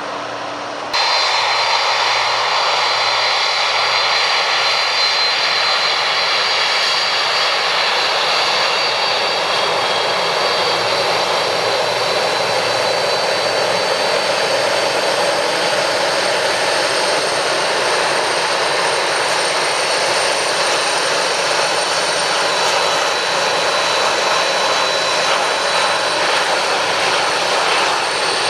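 Jet airliner engines running steadily: a loud, even rush with thin high whining tones over it. It starts abruptly about a second in.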